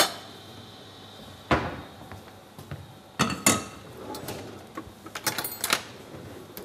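A stainless steel cooking pot and utensils handled on a gas hob's metal grate: a few separate knocks and clinks, with a quick run of clicks and brief metallic ringing near the end.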